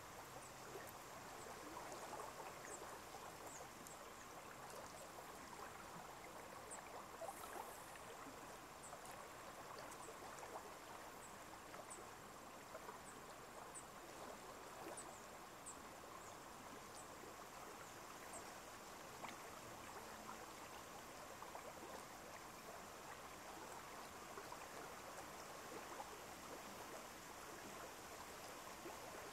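Faint, steady rush of running water, with short high chirps scattered through the first half or so.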